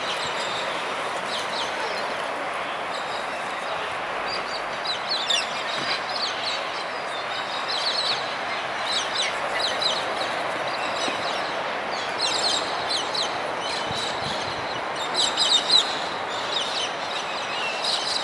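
A flock of parrots chattering in clusters of short, high chirps, busiest about 12 s and 15 s in, over a steady rushing background noise.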